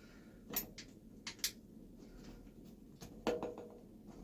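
Light clicks and taps of parts being handled while a garbage disposal is lined up on its sink mounting, with one duller knock about three seconds in.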